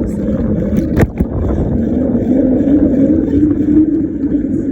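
Bicycle tyres droning on the road while riding, a steady roar with a whirring tone that wavers in pitch, and a sharp knock about a second in.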